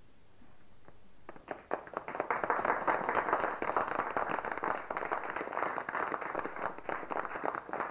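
A crowd applauding. It breaks out about a second and a half in and goes on steadily as many hands clap at once.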